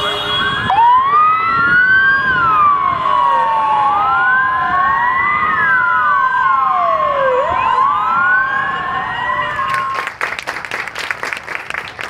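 Several police car sirens wailing at once, their rising and falling tones overlapping over a steady tone. About ten seconds in the sirens stop and a crowd starts clapping.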